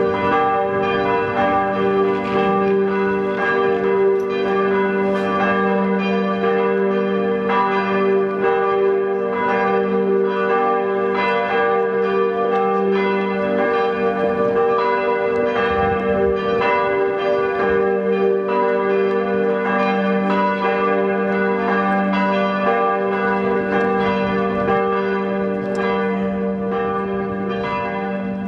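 Church bells of St. Lambertus pealing, really loud: several bells struck over and over, their tones overlapping into a continuous ringing hum.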